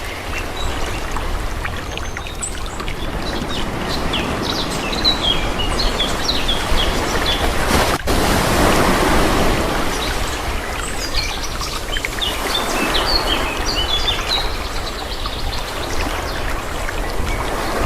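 Calm sea waves washing in, the water noise swelling and easing in slow surges, with many short, high bird chirps over it.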